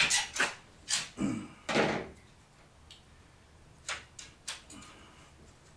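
Metal knocks and clatter as the old roller assemblies are pulled from the bottom of an aluminum sliding glass door: a run of several sharp knocks in the first two seconds, then a few lighter clicks about four seconds in.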